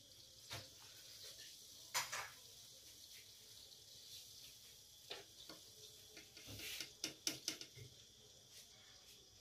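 Quiet room tone with a faint steady hiss and a few short, faint clicks and light knocks, a small cluster of them near the end.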